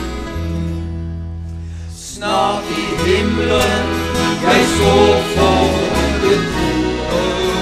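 Acoustic guitars, a 12-string among them, accompany a country-style Norwegian gospel song with held low notes. About two seconds in, men's voices come in singing.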